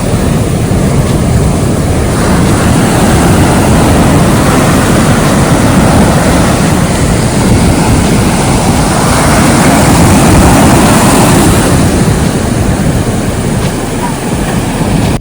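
Sea surf breaking and washing up on a beach, with wind rumbling on the microphone. The wash swells about two seconds in and again around ten seconds.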